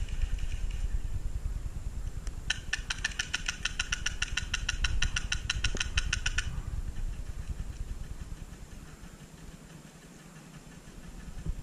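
Airsoft rifle firing a long rapid string of evenly spaced shots for about four seconds, starting a couple of seconds in, over a steady low rumble on the microphone.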